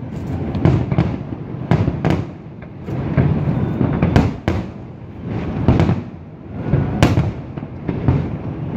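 Fireworks display: aerial shells bursting one after another, low booms with crackle and echoing rumble, coming in clusters with brief lulls.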